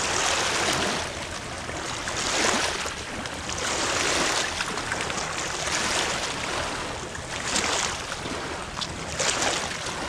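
Small waves washing over the muddy, stony edge of a river foreshore, swelling and fading every second and a half to two seconds.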